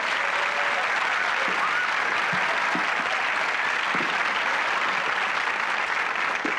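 Studio audience applauding steadily, the round of applause that greets a sitcom character's entrance.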